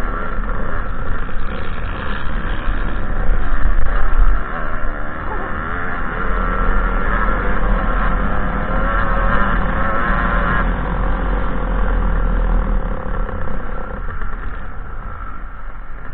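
2007 KTM 300 XC's two-stroke single-cylinder engine running hard under load as the dirt bike is ridden at race pace over rough ground, with wind rushing over the microphone.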